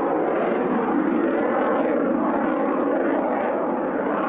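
De Havilland Sea Vixen's twin Rolls-Royce Avon turbojets heard in flight: a loud, steady rushing jet noise as the aircraft banks through its display.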